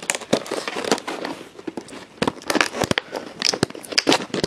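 Stiff plastic calculator packaging being bent and pried open by hand, crackling and crinkling in irregular snaps and clicks, thickest in the second half.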